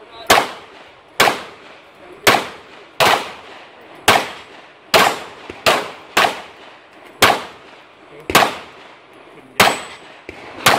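Pistol fired in a string of about a dozen single shots, roughly one a second with uneven gaps, each followed by a short echo.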